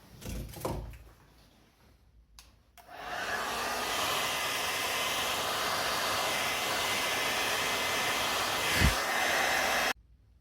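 A handheld hair dryer starts about three seconds in, blows with a steady rush of air for about seven seconds, and cuts off suddenly near the end. There are short handling knocks in the first second and a low thump shortly before it stops.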